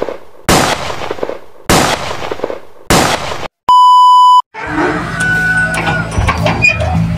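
Intro sound effects: three sudden noise bursts about a second apart, each fading away, then a steady test-tone beep lasting under a second. After a second's break, outdoor ambience with a low steady hum comes in.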